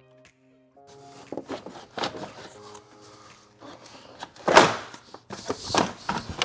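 Plastic fan shroud being wrestled up out of a BMW 335i engine bay by hand: a string of knocks, clunks and scrapes, the loudest about four and a half seconds in, as the shroud binds against the aftermarket intake pipes. Background music plays over the first second.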